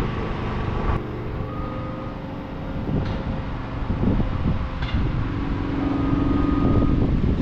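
Engine of a large work vehicle running steadily with a low rumble.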